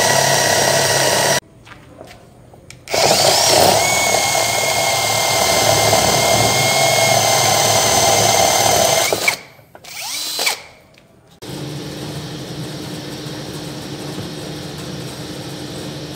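Cordless drill boring through a round wooden disc: the motor runs with a steady whine, stops for about a second and a half, then runs again for about six seconds, rising briefly in pitch as it speeds up. A short burst follows near ten seconds in, and the last four seconds or so hold a quieter steady hum.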